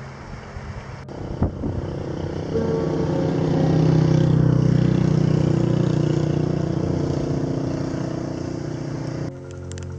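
A motor vehicle's engine passing close by, swelling to a peak about four seconds in, then fading before cutting off suddenly near the end. A short knock comes about a second and a half in.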